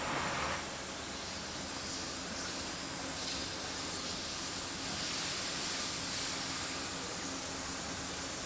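Steady hiss of running machinery in a CNC machining and robot cell, with a faint constant hum underneath. A brighter part of the hiss drops away about half a second in.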